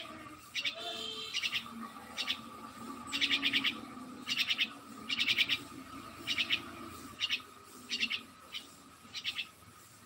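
A bird calling in short bursts of rapid, chattering chirps, about ten in all, coming roughly once a second. A faint steady tone runs underneath.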